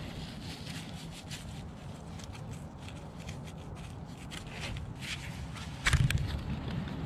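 Stones and wet clay being handled and packed up close, giving scattered light scrapes and clicks. About six seconds in a stone is set down with a thud, the loudest sound.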